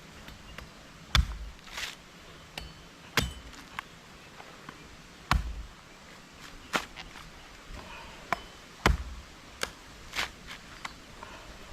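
A series of sharp knocks or chopping strikes at an irregular pace, about a dozen in all, some with a low thud; the loudest come about a second in and near the last third.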